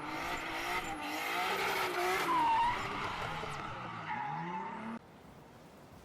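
Car engine revving with tires squealing, with rising and falling pitch, cutting off abruptly about five seconds in.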